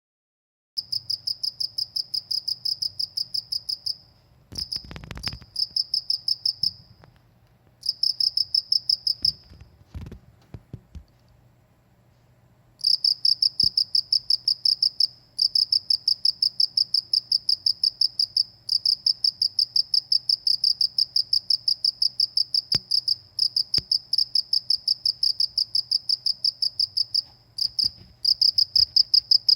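A cricket chirping in long trains of rapid, evenly spaced high-pitched pulses, each train lasting a few seconds and broken by short pauses. There are a couple of brief low thumps about five and ten seconds in.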